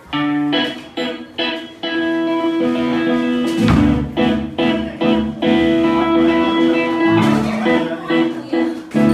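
Live band playing: guitar strumming ringing chords, with bass and drums coming in about three and a half seconds in.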